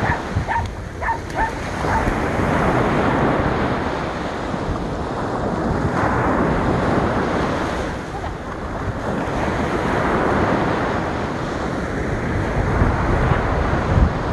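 Choppy waves washing in on the shore, the surf swelling and easing, with wind buffeting the microphone.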